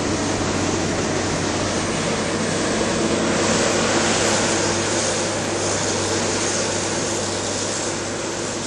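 Engine of heavy logging machinery running steadily, a continuous machine hum with noise, growing a little louder a few seconds in and easing off near the end.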